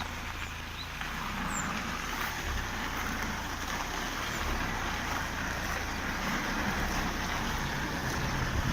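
Kia Sorento driving, a steady rush of wind and road noise with a low rumble underneath, recorded while searching for a whistle from the body.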